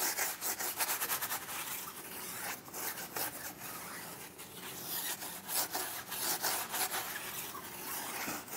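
Active 2.0 electric pressure washer spraying a water jet, an uneven scratchy hiss that swells and fades as the stream moves; the machine itself is really not that loud.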